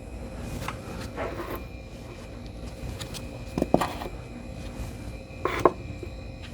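Groups of glued 18650 lithium-ion cells being set down and shifted on a workbench: a few scattered hard clacks and knocks, the sharpest near the end.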